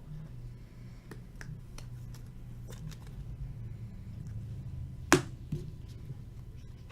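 Trading cards being handled and sorted by hand: faint ticks and rustles over a steady low hum, with one sharp click a little after five seconds and a smaller one just after it.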